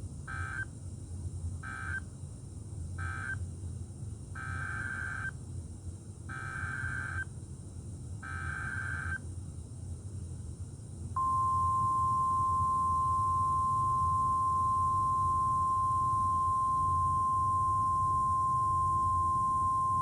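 NOAA Weather Radio Emergency Alert System signalling. First come three short bursts of SAME digital data, the end-of-message code closing one warning. Then three longer, screechy data bursts about two seconds apart carry the header of the next warning. About eleven seconds in, the loud, steady 1050 Hz weather radio warning alarm tone starts and holds for about nine seconds.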